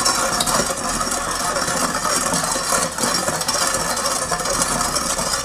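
Steel ladle stirring sugar into water in a stainless-steel saucepan, a steady swishing with light scrapes of metal on metal, over a constant rushing noise, while the sugar dissolves into syrup.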